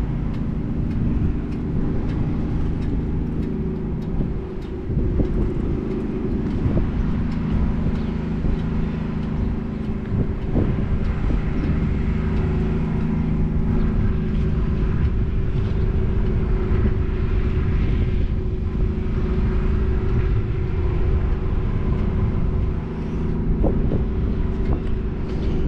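A vehicle engine running steadily at idle: an even, low hum that holds the same pitch throughout.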